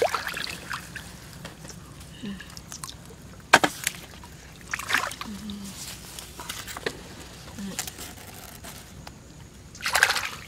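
Shallow paddy-field water sloshing and splashing in short, irregular bursts. There is a sharp splash about three and a half seconds in and a louder, longer splash near the end.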